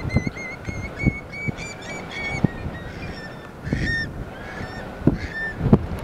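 Eurasian curlews calling: a run of short whistled notes, about four a second over the first two and a half seconds, then a few more calls near the middle and the end, over wind buffeting the microphone.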